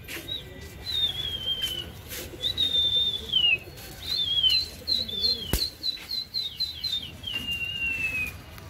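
Pigeon flyer's high whistles directing a released flock. Long notes slide down in pitch, and about halfway through comes a quick run of short falling whistles. There is one sharp click shortly after the middle.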